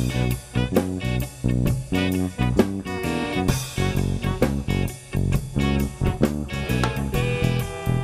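Live band playing an instrumental passage with no singing: bass guitar and drums keep a steady beat under rattling hand percussion, with saxophone and trombone playing.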